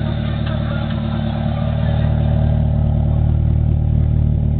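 Honda Civic's D16Z6 1.6-litre four-cylinder engine idling steadily, heard at the exhaust, getting a little louder about two seconds in.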